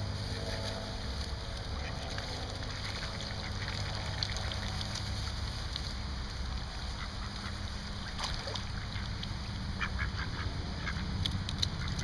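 Mallard ducks quacking, mostly in the first few seconds, then a cluster of short sharp clicks about ten seconds in.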